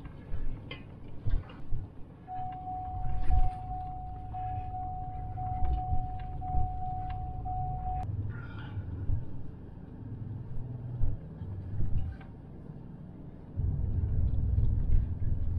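In-cab sound of a Ford Raptor's twin-turbo EcoBoost V6 truck driving on a rough snowy trail: a low engine and tyre rumble with scattered knocks and bumps, growing louder near the end. A steady, slightly pulsing high tone sounds for about six seconds in the first half.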